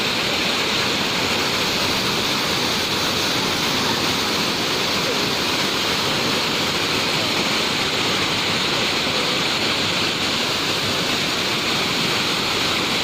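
Waterfall pouring with a steady, unbroken rush of water.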